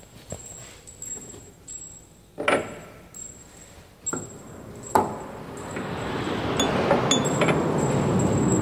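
Steel workpieces clinking against the metal vise jaws as they are set into a band saw's clamp: three sharp knocks a second or two apart. From about halfway a steady rushing noise builds up and grows louder.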